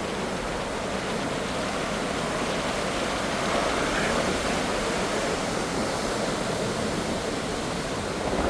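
Steady rushing of ocean surf, swelling a little about halfway through.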